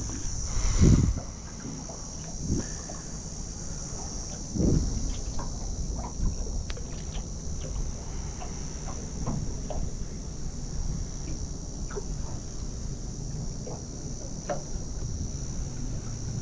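Steady high-pitched insect drone, with a few low thumps and small clicks from handling on the boat, the loudest thumps about a second in and near five seconds.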